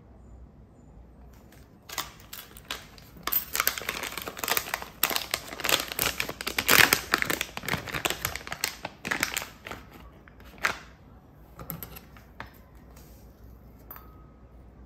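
A plastic pouch of dried mango crinkling and rustling as it is handled and opened, densest from about two to eleven seconds in. Near the end come a few light clicks as scissors cut the mango.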